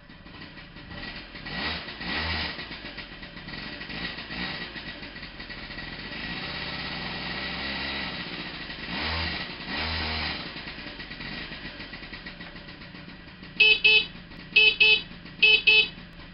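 A Honda Vision 50cc two-stroke moped engine idling, revved up and back down twice, then the moped's horn sounded in three quick double beeps near the end, the loudest sound here.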